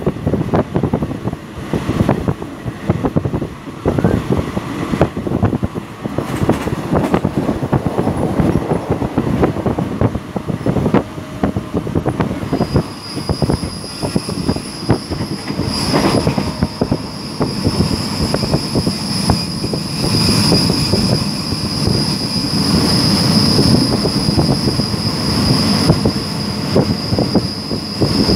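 Passenger train running, with irregular clacks from the wheels over the track. About halfway through, a steady high-pitched squeal joins and carries on.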